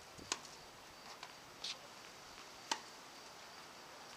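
Tennis balls struck by rackets in a rally: two sharp pops about two and a half seconds apart, with a few fainter ticks between them.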